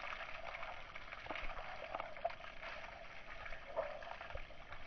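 Water from a garden hose spraying onto a wet Border Collie's coat and splattering on paving stones: a steady splashing with a few brief louder splashes.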